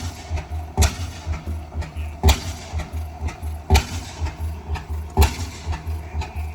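Antique stationary engine running, with a sharp bang about every one and a half seconds and lighter beats in between.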